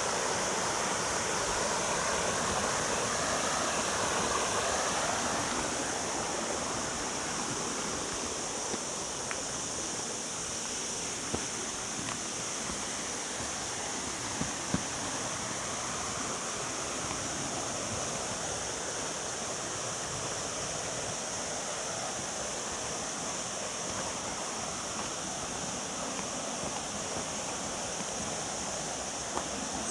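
Steady rush of water from natural freshwater cascades and waterfalls, a little louder in the first few seconds, with a few short clicks in the middle.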